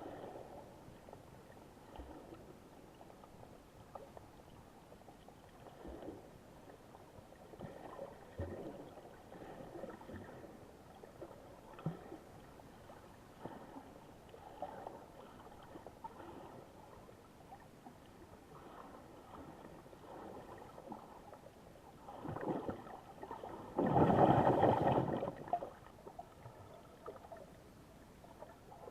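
Sea water sloshing and gurgling in soft, irregular swells, with one louder rush lasting about a second near the end.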